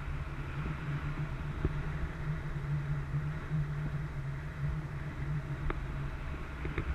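Motorboat engine running steadily with a low hum, with a couple of faint clicks.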